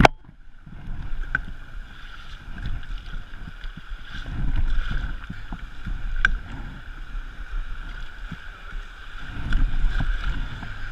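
Wind buffeting the microphone in uneven gusts over the steady rush of river water, with a few light knocks, the sharpest about six seconds in.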